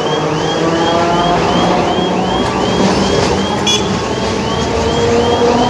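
A multi-car electric tram passes close by, with the steady whine of its traction motors drifting slowly in pitch over the rumble of wheels on the rails. A high, arched electronic chirp repeats about two and a half times a second throughout, and a brief sharp ring sounds about two thirds of the way in.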